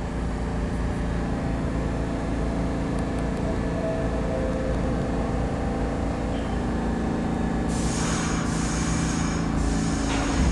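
New York City subway R62A train with a steady low rumble and hum of its running equipment. A hiss comes in about three-quarters of the way through and stops about two seconds later.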